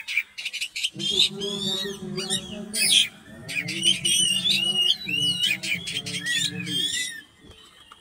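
Oriental magpie-robin (kacer) in full song: a fast, unbroken run of varied whistles sliding up and down, mixed with sharp clicks and chatter, stopping shortly after seven seconds in. Underneath, a low hum runs from about one second to about seven seconds.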